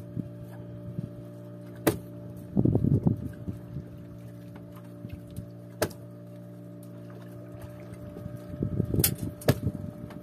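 Boat engine running steadily, with a few sharp knocks and two bursts of thrashing and splashing as a hooked tuna is hauled up against the side of a wooden boat.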